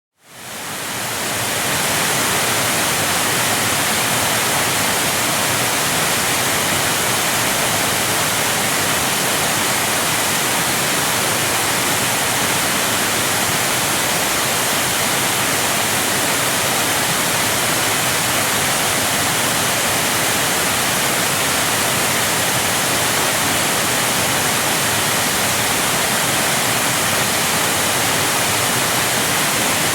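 Waterfall: a steady, unbroken rush of falling water, fading in over the first second or two and then holding even.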